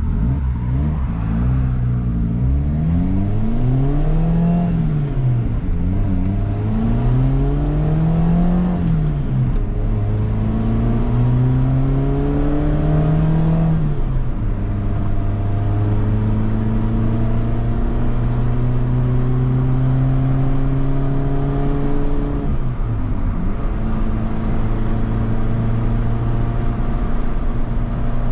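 A 1995 Mitsubishi Pajero Mini's engine heard from inside the cabin, accelerating from a stop. The engine note climbs and falls back three times as it shifts up through the gears, then settles to a steady cruise, dipping once more near the end before it levels out again.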